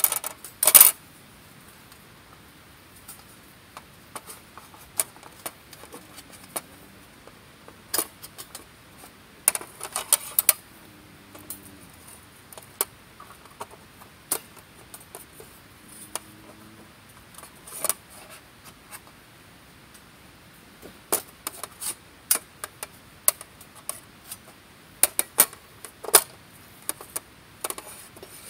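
Irregular metallic clinks and rattles of metal camp gear being handled, with louder clattering bunches about ten seconds in and again near the end.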